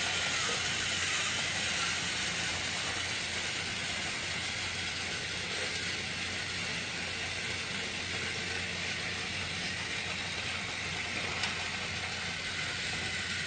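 A small motor running steadily: an even, unchanging whirring hiss over a low hum.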